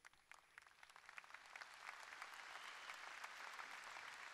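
Faint applause from a large audience: scattered claps at first, thickening into steady applause after about a second.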